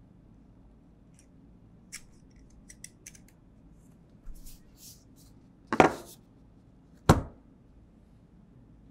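Smartphone packaging being handled: small clicks and crinkles, then two sharp knocks about a second apart, the loudest in the stretch.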